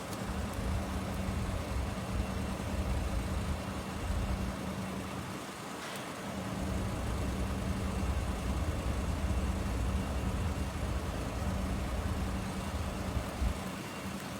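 Motor vehicle running on the road: a steady low engine and road rumble with a constant hum, easing briefly about midway.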